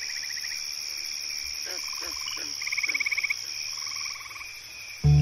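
Chorus of frogs and insects: a steady high insect drone with rapid pulsed trills, each under a second, and a few short low croaks. Music with deep held notes comes in suddenly near the end.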